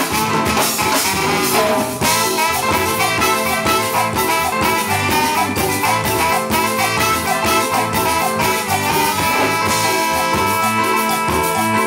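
Live cumbia band playing an instrumental passage: trumpet and saxophone lines over electric guitars, congas and drum kit, with a steady dance beat.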